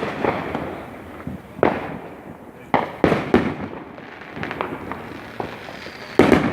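Fireworks going off in quick succession: several sharp booms, bunched in the middle and again near the end, each trailing an echoing rumble, with crackling between them.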